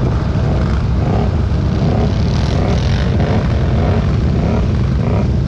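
ATV engine running with a steady deep rumble.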